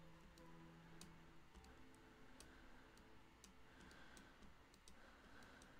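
Faint computer mouse clicks, repeated at an uneven pace of roughly two a second, each click stepping the on-screen colour. A faint low hum runs underneath.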